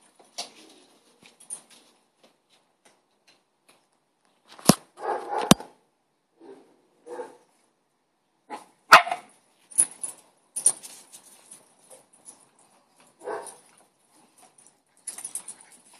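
Neighbours' dogs barking off and on in short, irregular bursts, with a few sharp knocks about five and nine seconds in.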